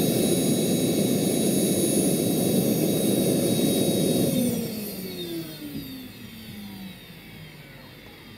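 Jakadofsky Pro 6000 turbine of a large scale model Aérospatiale Gazelle helicopter running steadily on the ground with its rotor turning, then throttled off a little over four seconds in: its whine and the rotor sound fall in pitch and fade as the turbine and rotor spin down.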